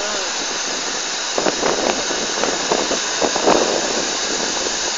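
Steam locomotive standing at the platform, venting steam with a loud, steady hiss, with a few short knocks in the middle.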